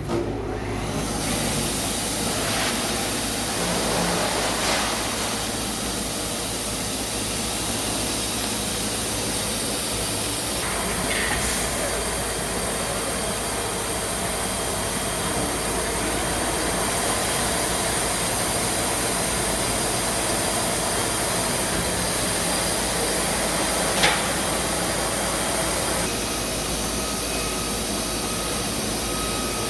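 Industrial packaging machinery running with a steady, loud hiss, with one sharp click late on.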